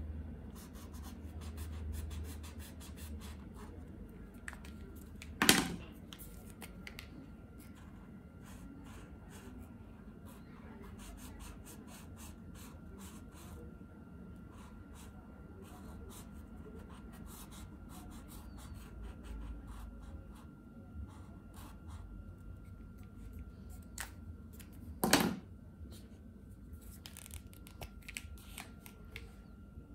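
Paint marker tip scratching and tapping on paper as an area is coloured in, with two sharp clicks, one about five seconds in and one near the end.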